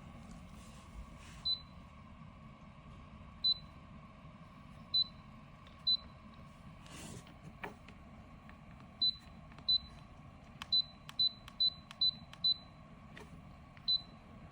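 A Syvio 2.8L ultrasonic humidifier's control panel giving short, high beeps as its buttons are pressed, about a dozen at uneven spacing, with faint clicks between them. The unit beeps but puts out no mist: it has failed.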